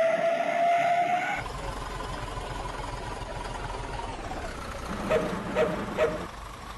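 A bus's wolf-howl exhaust whistle (knalpot srigala) sounding a rising howl that cuts off about a second and a half in. The engine runs underneath, and near the end come three short toots about half a second apart.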